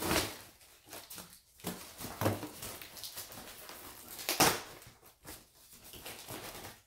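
Handling sounds of parts and packaging being unpacked: a few sharp knocks and rustles, the loudest about four and a half seconds in.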